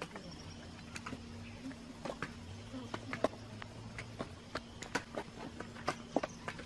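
Faint, irregular sharp knocks and crunches, several a second, from hand hoes chopping and scraping dry, stony field soil and from feet on it, over a faint steady low hum.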